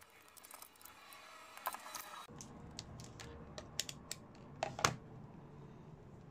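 Light handling noise: the rustle and small clicks of the foil-wrapped battery cell pack being handled, then a few sharper clicks and knocks about four to five seconds in as a digital multimeter and its test leads are set down on the cutting mat. A faint low hum starts about two seconds in.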